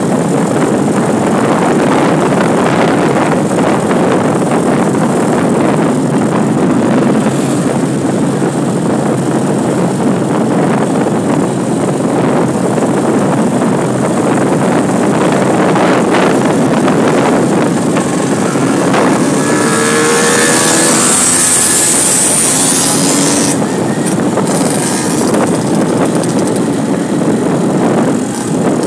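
Steady rush of wind, engine and tyre noise from a vehicle moving along a paved road. About two-thirds of the way through, a short rising engine note and a burst of hiss rise above it.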